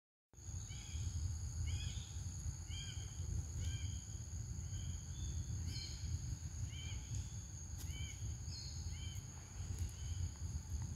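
Forest ambience: a steady high insect drone, a bird repeating a short chirping note about once a second, and a low rumble of wind or handling on the microphone.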